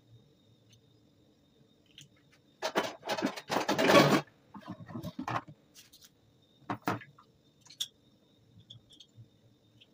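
Clatter of plastic plates being handled and pulled from a stack, loudest a little past halfway through its first half, with smaller rattles after it. Later come a few sharp clicks from a metal garlic press.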